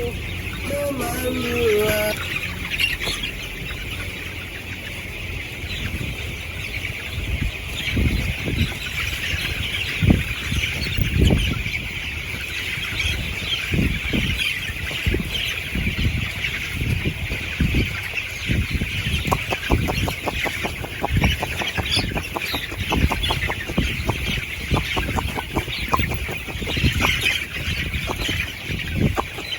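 A large flock of broiler chickens in a closed house, a dense continuous chatter of peeping and clucking, with scattered low thumps.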